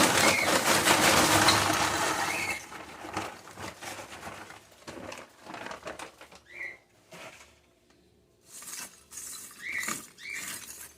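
Lumps of charcoal tumbling and clinking in a barbecue grill as they are piled and arranged: a loud rush of sliding pieces for the first couple of seconds, then scattered clinks and knocks.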